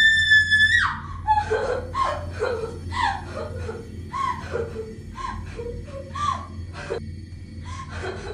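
A shrill, high scream held for about a second that then breaks off, followed by young women laughing and giggling in short bursts.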